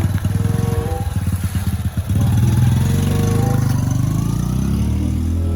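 Motorcycle engine running. It starts with a rough, choppy pulsing, then about two seconds in becomes a louder, smoother note that slowly rises in pitch as the bike accelerates.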